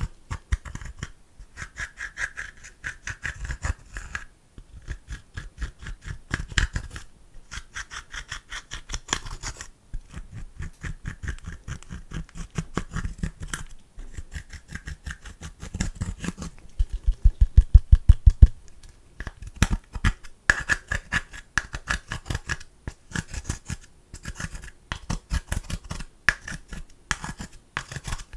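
A metal-tipped tool scraping and crushing pressed eyeshadow in a palette: a quick, continuous run of crumbly scratches and taps, with a faster, louder flurry of strokes about two-thirds of the way through.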